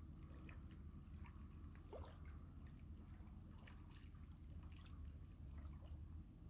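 Faint small laps and trickles of calm lake water among shoreline rocks, a scatter of soft plinks over a low steady rumble.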